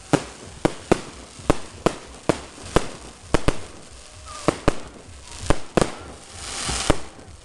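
Fireworks display: a run of about fifteen sharp bangs, roughly two a second and unevenly spaced, with a hissing rush building up to the last bang near the end.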